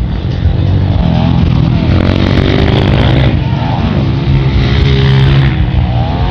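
Honda CRF230 dirt bike's single-cylinder four-stroke engine running under load, its revs rising and falling repeatedly as the throttle is worked, over a steady hiss.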